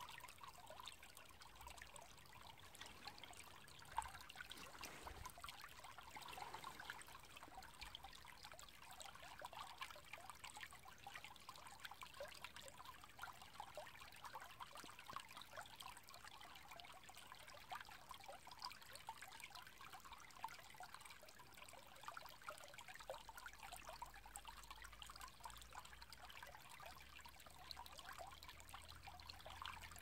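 Faint, steady trickle of shallow water running in a small ditch, with one sharp click about four seconds in.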